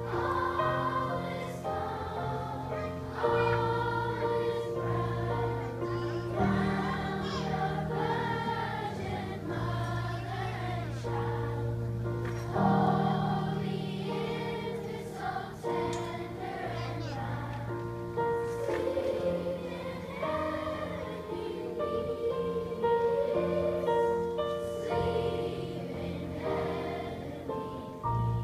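A children's choir singing together over instrumental accompaniment that holds steady low notes beneath the voices.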